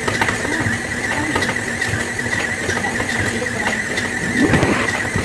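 Electric stand mixer running steadily with a constant high whine, its beater turning tortilla dough in a stainless steel bowl. A brief louder sound comes about four and a half seconds in.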